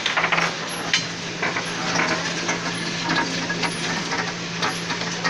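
Irregular clicking and rattling from a mechanical ball-drop game, small balls bouncing down through rows of metal pins, over a steady machine hum.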